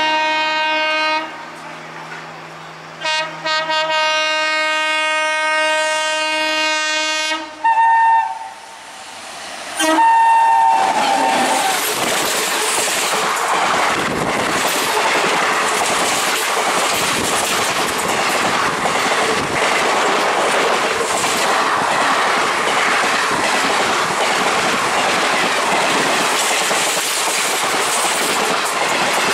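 Electric locomotive's multi-tone horn sounding as an express train approaches: a blast that ends about a second in, a long blast, then two short ones. About eleven seconds in the train reaches the crossing, and the loud rush of the coaches and their wheels passing close by lasts to the end.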